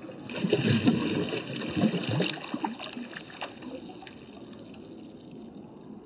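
Creek water splashing and sloshing around a hand as a smallmouth bass is released, loudest over the first three seconds, then easing to the steady trickle of the shallow stream.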